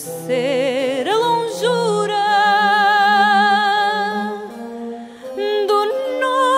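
Background music: a melody of long held notes that waver with vibrato, sung or hummed, over a low sustained accompaniment.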